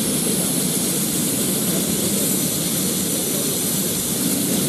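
Airbus H145 police helicopter running on the ground with its rotors turning, its twin turboshaft engines giving a steady high whine over a dense, even rotor noise.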